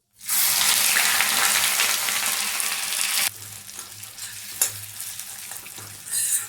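Freshly grated ginger dropped into hot ghee in a pan: a loud sizzle that starts suddenly and lasts about three seconds, then settles into a quieter steady sizzle as it is stirred, with a few spoon scrapes against the pan.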